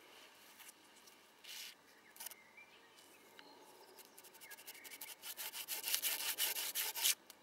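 Hand drill: a mullein stalk spindle spun back and forth between the palms in a spruce hearth board, a rubbing scrape that starts about four seconds in, gets faster and louder, and stops shortly before the end.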